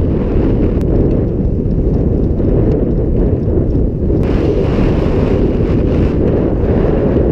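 Wind buffeting the camera's microphone, a loud steady rumble, with a brighter hiss joining in from about four seconds in.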